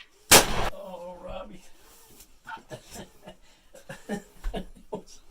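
A single loud shotgun shot about a third of a second in, with a short ringing tail: the shot that kills the turkey. Low voices and small movements follow.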